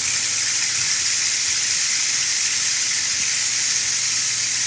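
Rain stick turned over, its pebbles cascading inside the tube in a steady, rain-like hiss.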